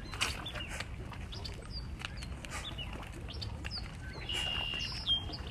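Small birds chirping, with one held high whistle near the end, over quick repeated scuffs of sneakers on concrete from fast knee-drives in a plank.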